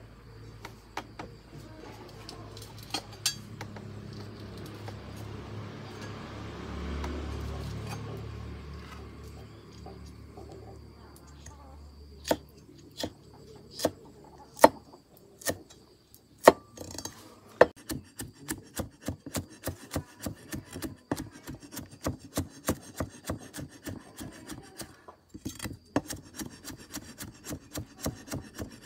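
Cleaver chopping chili peppers and garlic on a round wooden chopping block. There are a few separate knocks at first, with a low rumble about a quarter of the way in. From about halfway on it turns to fast, even chopping at about four strokes a second.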